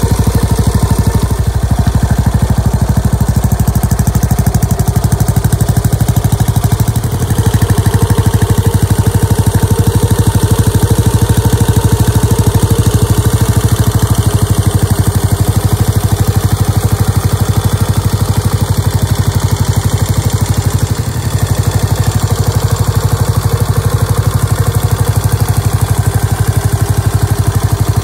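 Yamaha SR400 single-cylinder four-stroke engine idling steadily through an aftermarket megaphone muffler, a continuous even pulse with no revving.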